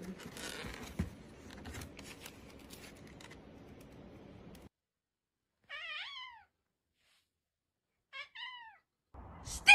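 A cat meowing: one meow about six seconds in, two short quick meows a little after eight seconds, and a louder meow that falls in pitch at the end. Before that, quiet rustling and clicking of handling noise.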